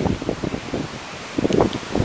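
Hurricane wind gusting against the microphone in irregular bursts over a steady rush of wind, growing stronger near the end.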